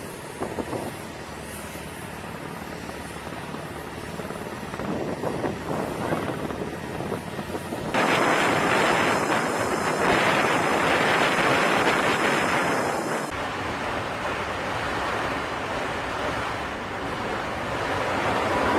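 Jet aircraft engines running on a carrier flight deck: a loud, steady rushing noise that jumps louder and brighter abruptly about eight seconds in, then eases back a few seconds later.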